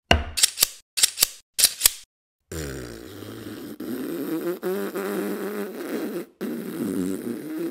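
Stop-motion sound effects: a quick run of sharp clicks, then after a brief pause a long, wavering, buzzy pitched sound whose pitch bends up and down.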